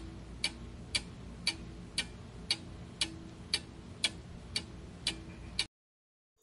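Clock-ticking sound effect for a quiz countdown timer, about two ticks a second over a faint steady hum. The ticking stops near the end, when the answer time runs out.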